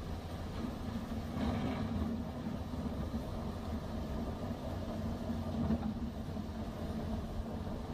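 Steady low rumble of a moving vehicle's engine and road noise, with no distinct knocks or other events.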